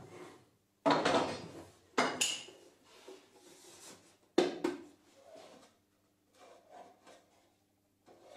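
Workshop handling sounds of wooden parts and hand tools on a wooden workbench: a few sharp knocks about one, two and four and a half seconds in, one with a short metallic clink, and quieter rubbing and shuffling between them.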